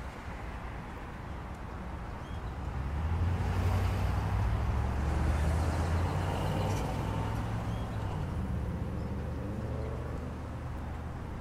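A motor vehicle passing on a road: a low engine rumble that swells about three seconds in and fades away toward the end.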